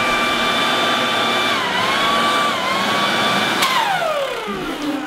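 Corded electric garden leaf vacuum running in suction mode with a steady high whine. Its pitch dips briefly twice as a banana at the intake loads it. About three and a half seconds in it is switched off with a click, and the whine falls away as the motor spins down.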